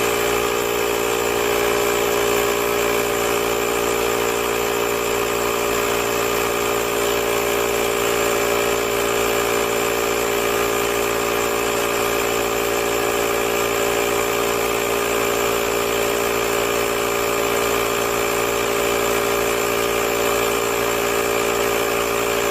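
Portable jump starter's built-in electric air compressor running steadily while inflating a car tire, set to shut off at 40 PSI.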